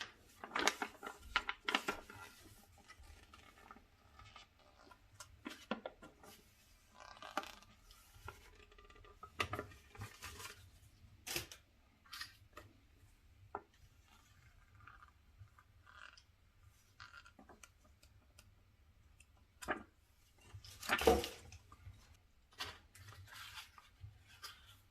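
Packaging being handled and opened: intermittent rustling, crinkling and tearing of wrapping, with scattered light knocks. The loudest is a longer rustle about 21 seconds in.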